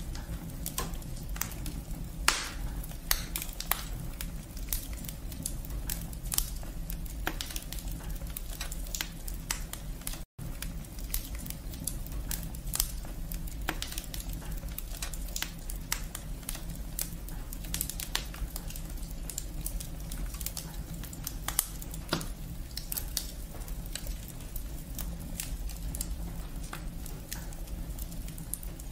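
Firewood burning in a brick fireplace, crackling and popping with frequent sharp snaps, a few louder pops standing out, over a low steady rumble. The sound cuts out for an instant about ten seconds in.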